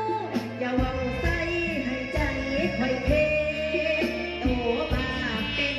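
Young woman singing a sustained, sliding melody into a microphone over amplified backing music with a steady beat.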